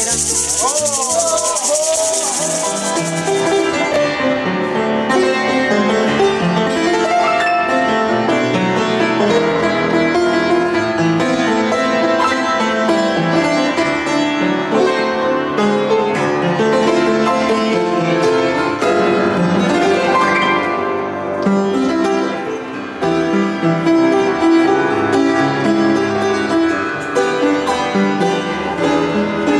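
Instrumental music led by piano, moving through sustained chords and melody notes. A high hiss fades out over the first few seconds.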